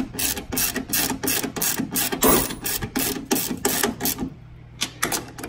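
Hand ratchet clicking as it spins on a socket, running down a 15 mm nut on the top strut-mount stud; a quick, even run of clicks that stops briefly about four seconds in and then resumes.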